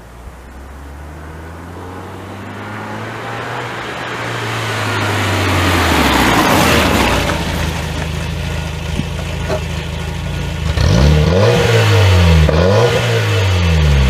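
Škoda Felicia pickup with a home-made exhaust drives up and past, its engine note growing louder to a peak about halfway through. From about three-quarters of the way in, the engine is revved several times, the note rising and falling with each blip of the throttle.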